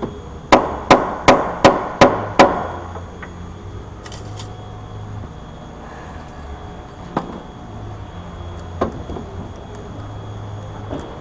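Six quick hammer blows, about three a second, then two single, lighter knocks a few seconds later.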